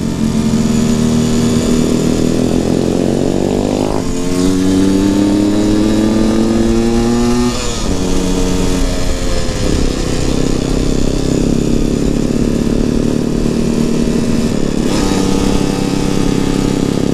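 Motorcycle engine heard from the rider's seat, revving up under acceleration with gear changes about four seconds in and again a few seconds later, each dropping the pitch before it climbs again, then running at a fairly steady cruise.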